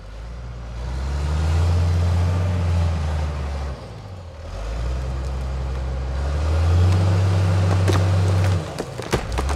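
Diesel engine of a Caterpillar wheeled skidder revving hard under load in two long surges, dropping back between them, as it pushes a partly cut oak trunk over. Near the end come a few sharp cracks as the trunk starts to give way.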